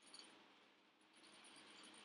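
Near silence: faint room hiss, with a brief faint rustle of the picture book's paper pages just after the start.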